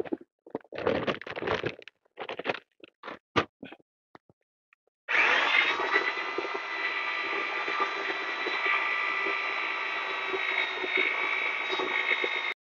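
An electric paddle mixer for tile adhesive, a drill-type mixer, starts about five seconds in, spins up quickly and then runs at a steady speed with a high whine. It stops abruptly just before the end. Before it starts there are short, irregular knocks and scrapes.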